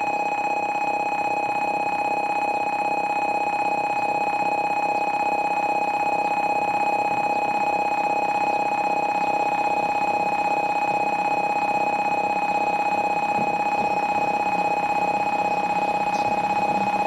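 Shinkansen platform's electronic warning bell ringing continuously for an arriving train: one steady high tone with a fast, even pulse.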